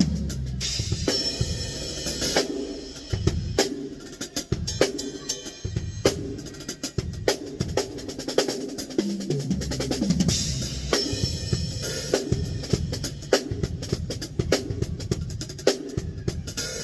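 Acoustic drum kit played steadily, with bass drum, snare and rimshot strokes coming thick and fast.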